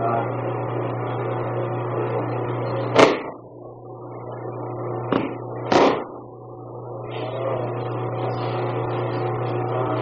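A body thrown onto a training mat: a sharp slap-thud about three seconds in, then a lighter smack and another thud close together a couple of seconds later, over a steady low hum and tape hiss.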